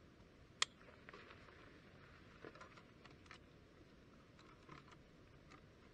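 Faint scattered clicks and rustles of small gear being handled, with one sharper click about half a second in.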